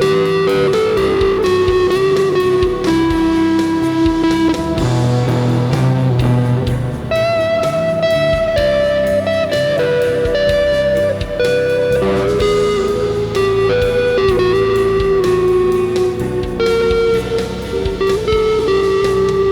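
Electric guitar played through effects pedals, improvising a lead of mostly held single notes over an ambient rock backing track with drums and bass.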